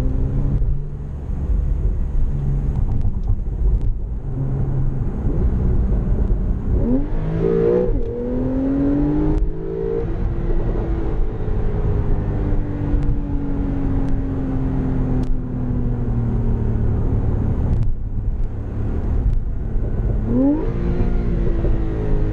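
Porsche 911 Targa 4S (991.2) twin-turbocharged 3.0-litre flat-six pulling under way in sport mode with the sport exhaust open. The revs rise about a third of the way in, sink slowly for several seconds, then climb again near the end.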